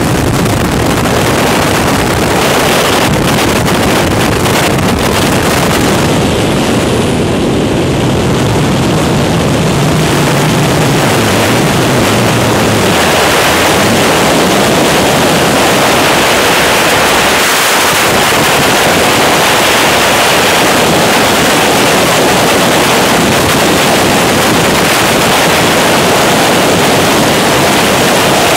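Loud wind noise on a skydiving camera's microphone in freefall, a steady rushing haze. In the first few seconds, around the exit from the aircraft door, it buffets irregularly, then evens out.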